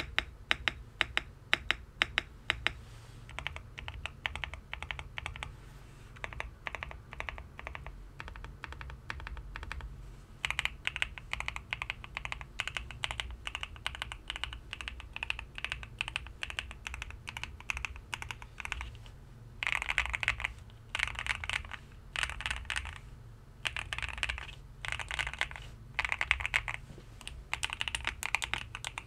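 Typing sound test on a GMK67 mechanical keyboard with freshly lubed switches: rapid runs of clacking keystrokes, with a few loud separate key presses at the start and short pauses between bursts.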